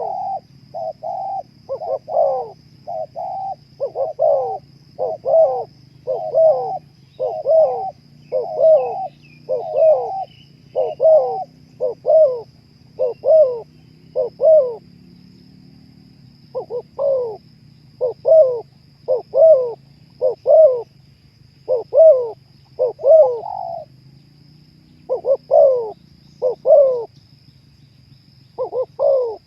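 Spotted dove cooing in a long run of short notes, each gliding down in pitch, about one or two a second, with a brief break about halfway through and another near the end.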